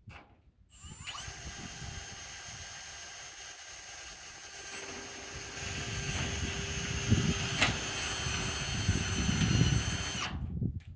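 Power drill driving a screw into sheet-metal roofing tin with no pilot hole. The motor whines steadily from about a second in, grows louder about halfway as the screw bites, with a sharp click near the end, then stops.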